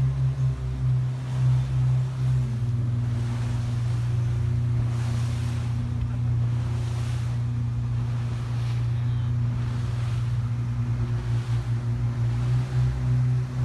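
Yamaha 242 jet boat engine running, a steady drone that pulses unevenly a few times a second at the start and again near the end, a lumpy beat that fits the misfire being chased. A light wash of water and wind lies under it.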